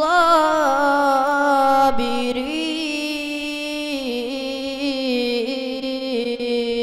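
A boy's voice in melodic Quran recitation (tajweed tilawat), drawing out one long held note with small ornamental turns. The pitch steps down about four seconds in.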